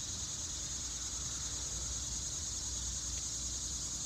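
A steady, high-pitched chorus of insects trilling without a break, over a faint low rumble.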